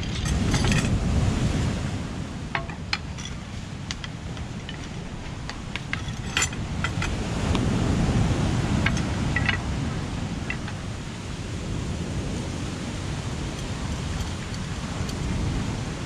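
Strong wind buffeting the microphone in gusts, swelling about a second in and again around eight seconds, with scattered small ticks and clicks over it.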